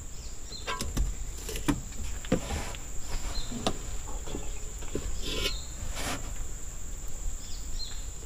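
Steady high-pitched drone of insects, with scattered light clicks and knocks throughout.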